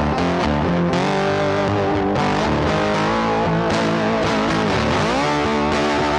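Background music led by electric guitar, with notes that slide in pitch about five seconds in.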